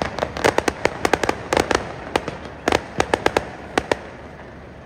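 Fireworks going off in a rapid, irregular string of sharp cracks, several a second, thinning out and stopping about four seconds in.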